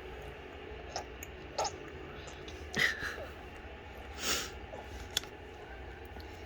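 A baby's scattered mouth noises: a few small smacks and a brief squeak, and about four seconds in a short breathy blow, as he blows bubbles through a mouthful of baby food.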